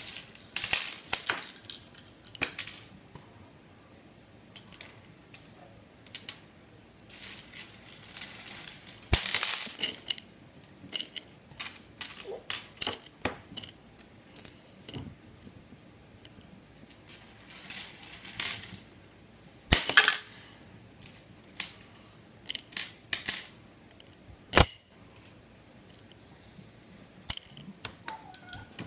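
Scattered, irregular clinks, taps and knocks of small hard objects being handled and set down, with three sharper knocks spread through.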